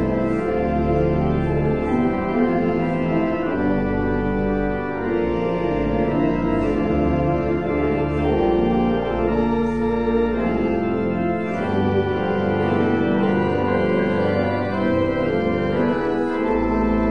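Church organ playing slow, held chords over a sustained bass, the chords changing about every second.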